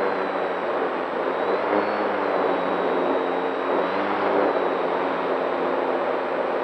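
Electric motor and propeller of a radio-controlled model seaplane running steadily in flight, heard from a camera mounted on the plane, with rushing wind over a steady whine.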